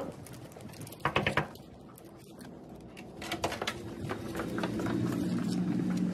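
Hotel room door being unlocked and opened: short clicks of the lock about a second in, more clicks of the handle and latch at about three and a half seconds, then a steady low hum.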